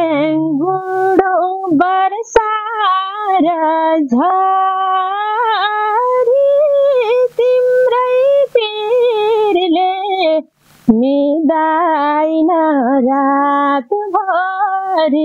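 A woman singing a Nepali folk song alone, holding long, wavering notes, with a short break about ten and a half seconds in.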